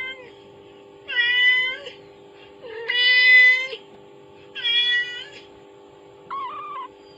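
Cat meowing repeatedly: four long, loud meows about a second apart, the third the longest, then a shorter, quieter meow near the end. A faint steady hum runs underneath.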